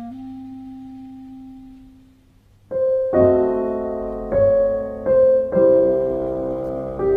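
Chamber ensemble music: a held woodwind note fades away, then about two and a half seconds in piano chords enter, struck five or six times, each dying away.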